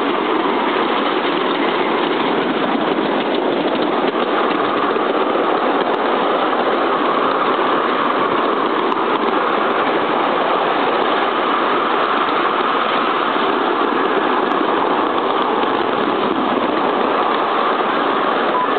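A 7¼-inch gauge 2-4-2 tender steam locomotive chuffing steadily as it hauls the carriages, heard from the front carriage close behind it, with the running noise of the wheels on the track.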